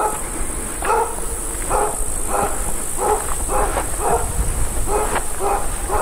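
A dog barking over and over in a steady run, about two barks a second.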